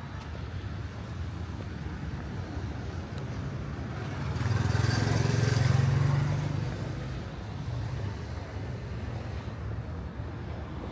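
A motor vehicle passes by. Its engine noise swells about halfway through, is loudest for a couple of seconds, then fades again over steady background noise.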